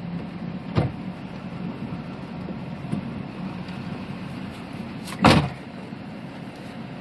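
Two sharp knocks over a steady low rumble, one about a second in and a much louder one just after five seconds, with a fainter tick in between.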